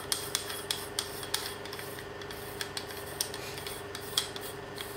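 Front section of a Leitz Elmaron 150mm f/2.8 lens being twisted off by hand: metal threads rubbing and scraping, with many sharp irregular clicks. A steady hum runs underneath.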